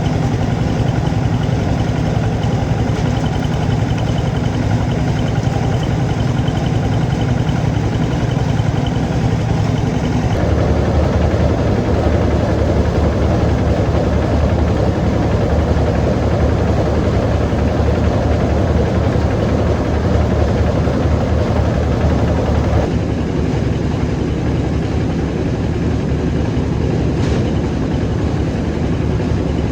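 An engine running steadily throughout, with a low, heavy note. Its sound shifts about ten seconds in and again a little past twenty seconds.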